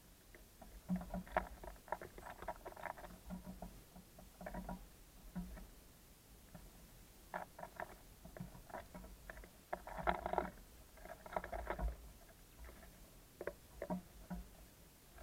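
Small birds pecking and hopping on a wooden bird feeder: irregular bursts of rapid tapping and scratching, with short pauses between them.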